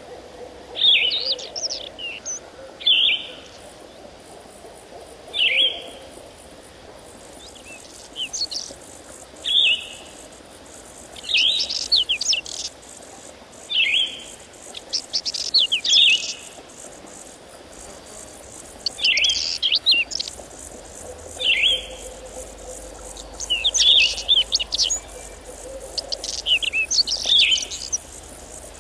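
Songbirds calling in short, high chirping phrases that repeat every one to three seconds, over a faint steady background.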